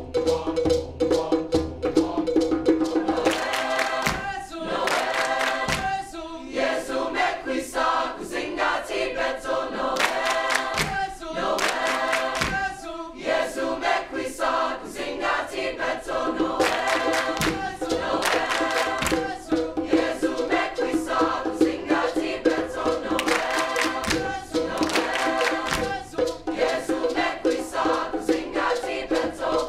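A student choir singing with percussion accompaniment.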